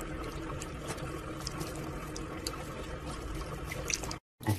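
Tap water running steadily from a faucet into a sink, cutting off abruptly near the end.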